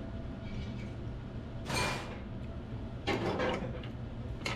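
Table knife and fork cutting through a breaded pork cutlet on a plate: two short scraping, crunching strokes, then a sharp click of cutlery near the end.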